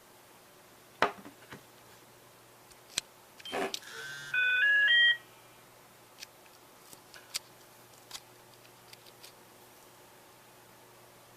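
A few sharp clicks, then a short run of three or four electronic beeps stepping up in pitch over about a second, from a mobile phone, followed by a few faint ticks.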